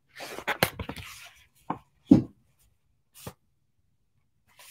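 A picture book being handled close to the microphone: about a second of paper rustling as the pages are moved, then a few separate soft knocks from the book being shifted and held up.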